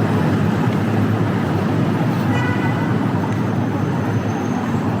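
Busy city street traffic: a steady, loud rumble of passing vehicles, with a brief high pitched tone about two and a half seconds in.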